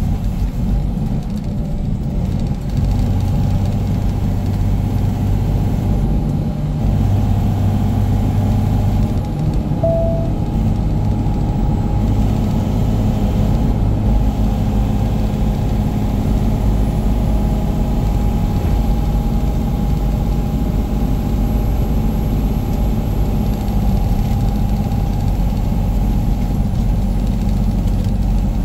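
Diesel engine of a loaded semi-truck running steadily on the road, a continuous low drone with road rumble underneath.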